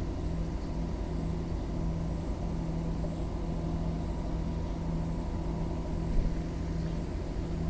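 A steady low mechanical hum and rumble, with one constant low tone, like an engine or machine running.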